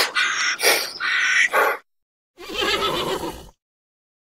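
A horse whinnying once, lasting about a second, beginning about two and a half seconds in. Before it, in the first two seconds, comes a harsh call broken into four short pulses.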